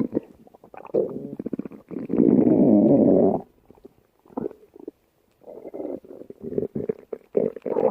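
Stomach growling and gurgling in irregular bursts with a fast bubbling, pulsing texture. The longest and loudest rumble runs from about two to three and a half seconds in, and a string of shorter gurgles follows from about five and a half seconds on.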